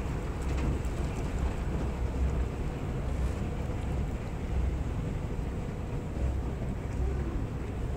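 Airport concourse ambience heard from a moving walkway: a steady low rumble with uneven swells under a light hiss.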